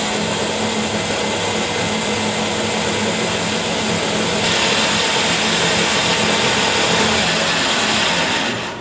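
Electric motor spinning a homemade MDF sharpening wheel, with a steady hum and hiss that cut off near the end. About halfway through, a brighter, louder hiss joins as something is pressed against the spinning wheel.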